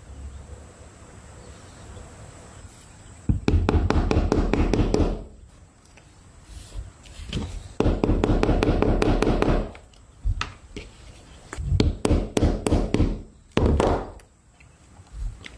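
Hand-tool work on craft materials: two loud bursts of about two seconds each of rapid scraping and clicking, then several shorter bursts near the end.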